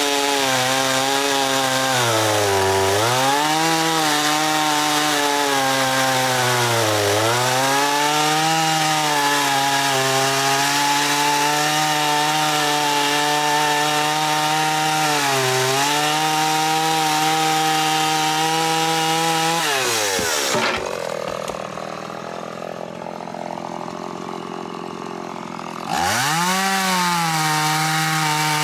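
Stihl MS170 two-stroke chainsaw cutting through a log at high revs, its pitch sagging briefly several times as the chain bogs in the wood. About two-thirds through, the revs fall away and the sound drops much quieter for about five seconds, then the saw revs sharply back up.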